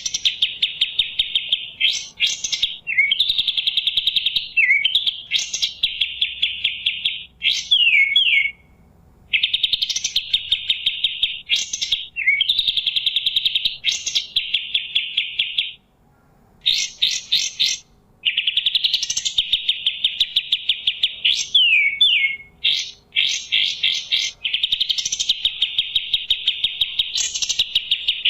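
Kapas tembak songbird singing loudly: long runs of fast, rapidly repeated notes lasting a few seconds each, broken by quick sweeping whistles and short pauses.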